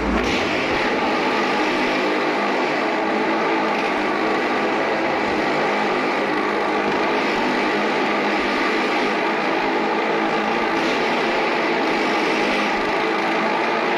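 Two motorcycles ride round the vertical wooden wall of a wall-of-death drum, their engines running loud and steady without a break.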